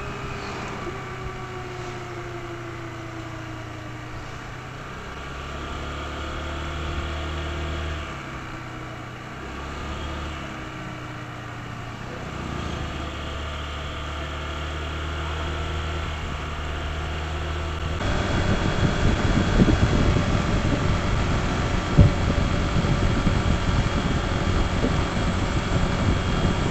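Honda ADV160 scooter's single-cylinder engine running while ridden, its pitch rising and falling slowly. About two-thirds of the way in, a louder rushing, buffeting noise of wind on the microphone joins it, with one sharp knock a few seconds later.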